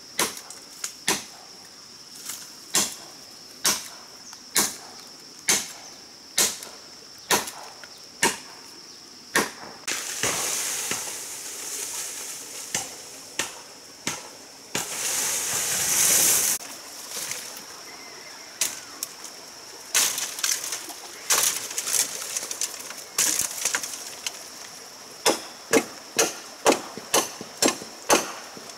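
A blade chopping a bamboo stem, sharp strokes about one a second. About ten seconds in the bamboo comes down with several seconds of rustling and crashing leaves and stems, then the chopping starts again, quicker near the end.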